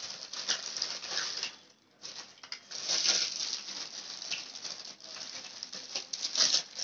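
Clear plastic bag crinkling and rustling as hands work inside it, handling the plastic walker wheels it holds, with a short pause about two seconds in.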